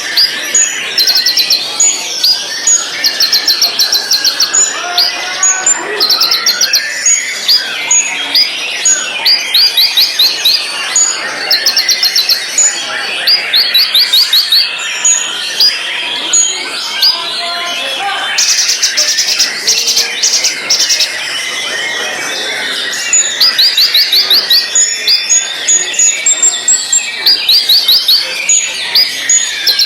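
White-rumped shama singing a long run of short, high, rapid trilled phrases, each about a second long, with one longer dense trill a little past the middle. Many other chirping notes fill in between.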